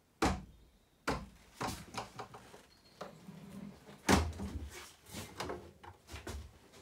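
A small fridge door shuts with a knock, followed by a run of knocks and clunks as the galley's wooden locker doors and worktop cover are handled, with one heavier thud about four seconds in.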